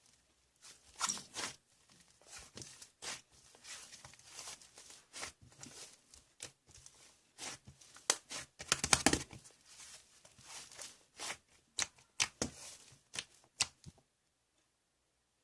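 Irregular, close-up rustling and scraping noises from something being handled, in short uneven bursts, the busiest stretch a little past the middle, cutting off abruptly near the end.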